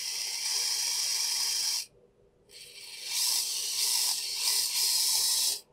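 Brushless sensorless motor of a 1/28 XRX DPA RC car, driven by a Furitek Momentum ESC, spinning up on throttle: a high-pitched whir of the motor and drivetrain in two runs, about two seconds and then about three seconds, with a short pause between, the second building up over about half a second.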